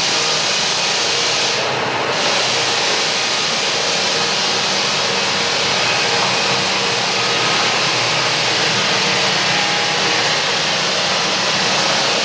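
Lägler SUPERHUMMEL belt floor sander running steadily, its motor and abrasive belt sanding a hard Australian Cypress floor with a loud, even hiss. About two seconds in, the high hiss briefly drops away for a moment.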